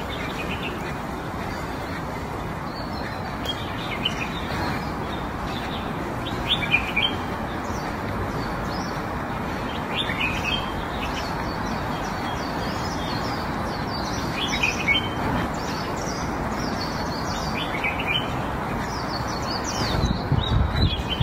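Small birds chirping now and then over a steady rushing background noise.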